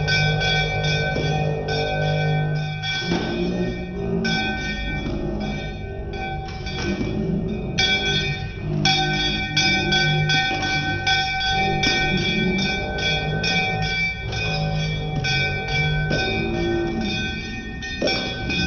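A small brass hand bell rung rapidly and almost without pause for an aarti, with two brief breaks in the ringing. Voices sing the aarti underneath.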